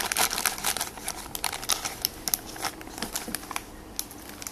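Clear plastic bags crinkling as bagged squishy toys are handled, in irregular light crackles that thin out toward the end.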